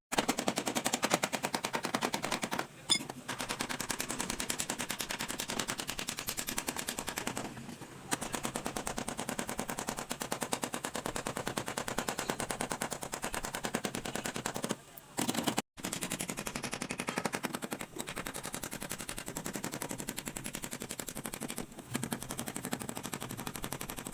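Rapid, even train of sharp mechanical impacts, like a power tool hammering on the car's body panel during dent repair. It stops briefly a few times and starts again.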